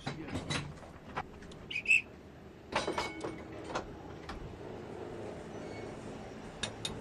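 Metal clanks and clicks of tramway gear: a hand point lever shifting the switch blades, then the notched controller handle of a vintage electric tram being turned. A brief high squeal about two seconds in is the loudest sound.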